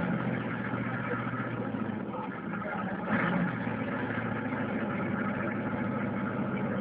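Engines of off-road 4x4 mud trucks running, a steady drone with a brief louder swell about three seconds in.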